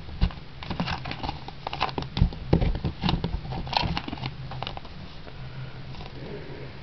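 Hands rummaging in a small plastic first-aid case and handling paper-wrapped bandage packets: irregular light clicks, taps and crinkles, which thin out after about four and a half seconds.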